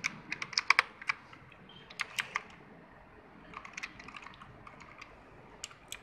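Keys of a backlit mechanical keyboard being pressed: a quick run of sharp clicks in the first second, a few more about two seconds in, softer clicks around four seconds, and one or two near the end.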